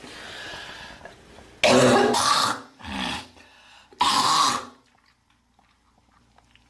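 A girl hawking and coughing to clear her throat: two loud, harsh bursts about two seconds apart, with a shorter, softer one between them.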